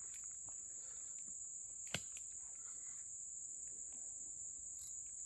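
Steady high-pitched insect chirring, with one sharp click about two seconds in.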